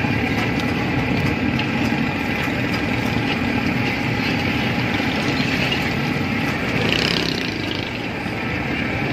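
Steady street traffic and engine noise, with battered fish deep-frying in a large wok of hot oil. A brighter sizzling hiss swells briefly about seven seconds in.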